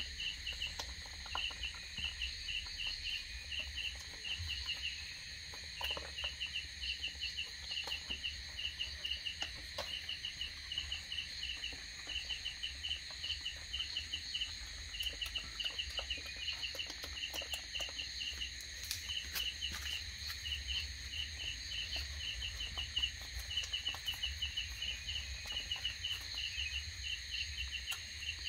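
Crickets chirping: short trains of high chirps repeating steadily, over a constant high insect whine and a low hum.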